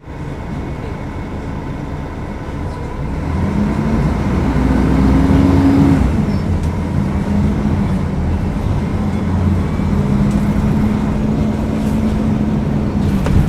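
Mercedes-Benz O500UDA articulated bus's diesel engine running under way. It builds in pitch and loudness for a few seconds, drops back about six seconds in, then runs on steadily.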